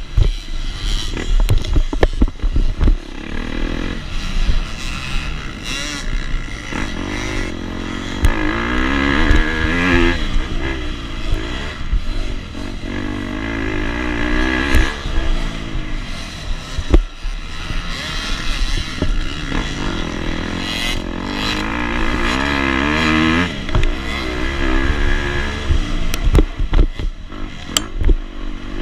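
KTM 250 SX two-stroke dirt bike engine revving up and down under racing throttle, its pitch rising and falling in repeated surges, with sharp knocks and clatter now and then.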